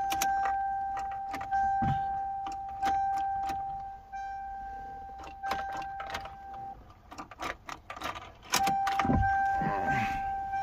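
Toyota Corolla AE92's warning chime sounding a steady tone that renews about every second and a half, broken off for a couple of seconds late on, with sharp clicks throughout. The engine does not crank.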